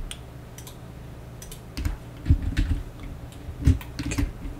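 Computer keyboard keys pressed in short, irregular clicks, a few of them heavier strikes with a dull low thump.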